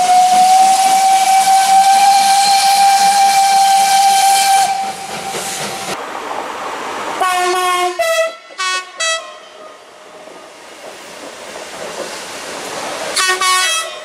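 A steam locomotive's whistle held as one long steady note, with steam hiss, stopping a third of the way in. Midway, an electric train's horn gives a quick series of four short blasts, then one more short burst near the end.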